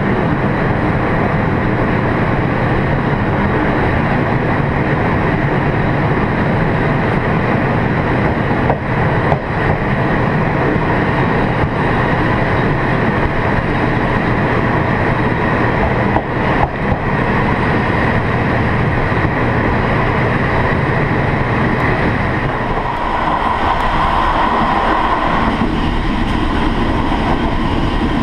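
Chu-Kuang express passenger carriages running at speed, heard from the gap between two cars: a loud, steady rumble of steel wheels on the rails with a few light knocks. About three-quarters of the way through, the deep rumble thins out and a higher steady hum comes up.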